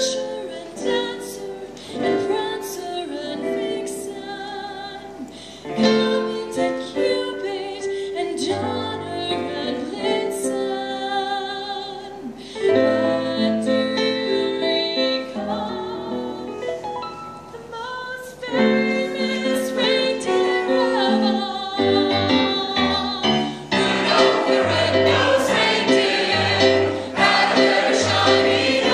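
A choir singing a Christmas carol in sustained, held notes, swelling louder in the last few seconds.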